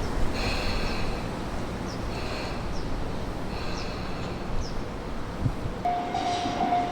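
Tobu Tojo Line electric train running on the track, with a high whine that comes and goes several times. About six seconds in, a level-crossing warning bell starts ringing at about two dings a second.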